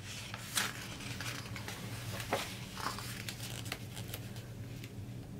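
Paper pages of a hardcover picture book being turned and handled: soft rustling with a scattering of faint ticks and scrapes.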